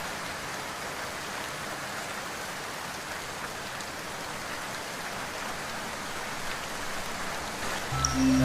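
Steady rain hiss, a rain ambience with no music over it; low music comes back in near the end.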